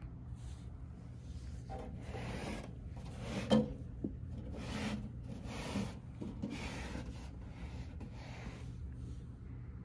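Handling noise: a run of short rubbing and scraping sounds, each about half a second long, with one sharp knock about three and a half seconds in.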